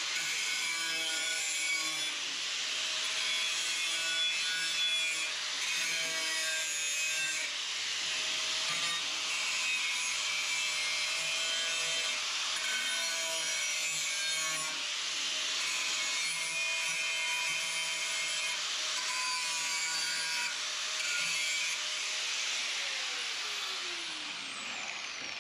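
Power cutting tool cutting through sheet steel: a steady grinding hiss with a whine that shifts in pitch as it bites, and near the end the motor winds down with a falling whine as the trigger is released.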